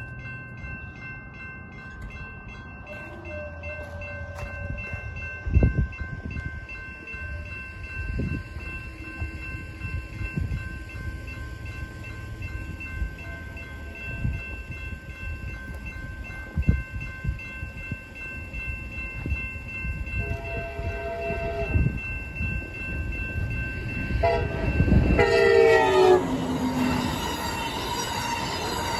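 Railroad crossing bell ringing steadily while the gate arms lower, with a few dull thumps. Near the end an Amtrak California San Joaquin passenger train sounds its horn, a short blast and then a longer one whose pitch drops as it reaches the crossing. The blasts are followed by the rumble of the train's wheels on the rails as it passes.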